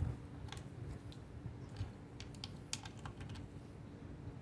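Faint, irregular small clicks and taps of hands and tools working on a motorbike's rear chain guard and swingarm bolts, as the bolts are checked for tightness.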